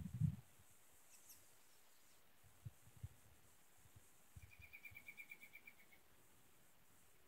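Quiet outdoor ambience with a faint, distant songbird trill about four to six seconds in: a rapid, even run of about a dozen identical short notes, sinking slightly in pitch. One faint high chirp comes a little over a second in.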